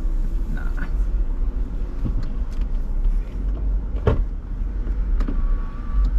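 Ford Edge cabin noise while driving slowly: a steady low rumble from the engine and tyres, with a sharp click about four seconds in.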